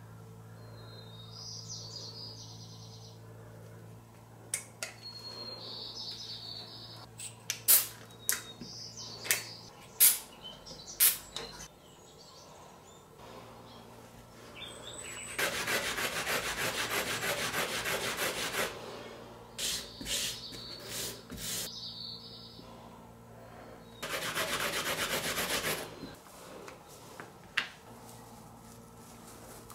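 A wooden stick scrubbed back and forth on an abrasive sanding pad to rub off streaks of two-component glue, in two bouts of quick rubbing strokes: about three seconds from halfway through, then about two seconds further on. Before that, a string of sharp clicks and taps from small parts being handled.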